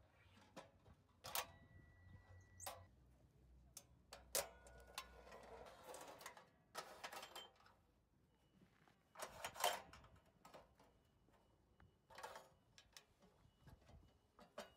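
Scattered light clicks and knocks of stainless-steel rocket-stove parts being handled with a gloved hand, with brief rubbing and scraping between them.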